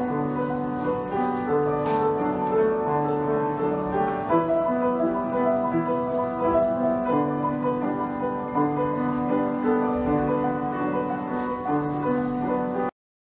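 Upright piano played solo, a slow classical-style piece with sustained notes, cutting off suddenly near the end.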